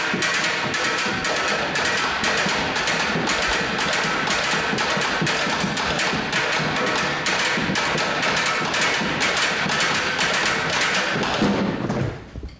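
Percussion played as a quick, steady run of strikes, about five or six a second, stopping near the end.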